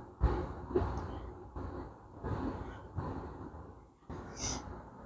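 Handling noise from a newly fitted motorcycle steering stem lock being worked with its key: several knocks and clicks about a second apart, with a short hiss near the end.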